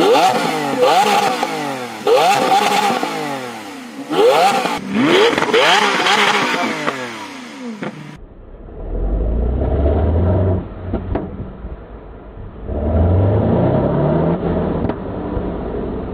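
Lamborghini Aventador LP700-4's V12 with a titanium aftermarket exhaust, free-revving in about four sharp throttle blips. The pitch snaps up on each blip and falls away as the revs drop. About halfway through the sound turns duller, with two longer, lower revs and a few short pops on the overrun.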